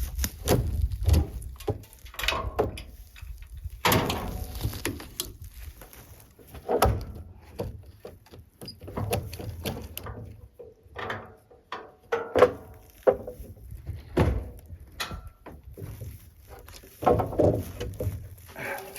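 Irregular knocks, clunks and scrapes of equipment being handled as a strapped-down load is freed, with short pauses between them.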